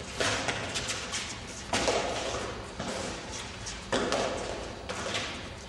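A fives ball being struck by gloved hands and smacking against the court's stone walls during a rally: a few sharp smacks every second and a half to two seconds, each with a short echo off the walls.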